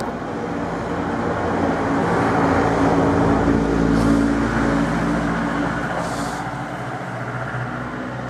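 A motor vehicle driving past close by, engine and tyre noise growing louder to a peak about three to four seconds in, with a low rumble, then fading.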